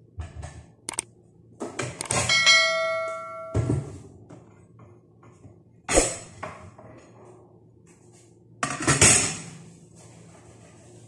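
Kitchenware being handled on a counter: a series of knocks and clatters, with a metal piece ringing for about a second a couple of seconds in, a sharp clank near six seconds and another clatter near nine seconds.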